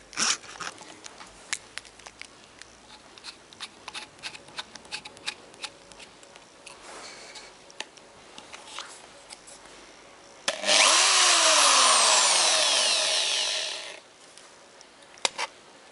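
An 810 W hammer drill spinning a BIC pen set in a cassette's reel hub, rewinding the tape at high speed for about three and a half seconds, its pitch falling steadily as it runs, then stopping abruptly. Before it, light clicks and knocks of the drill and pen being handled.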